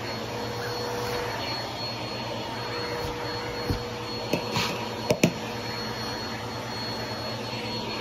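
Vacuum cleaner running steadily with a constant whine as its attachment is worked over microfiber sofa cushions. A few sharp clicks and knocks come in quick succession between about three and a half and five seconds in.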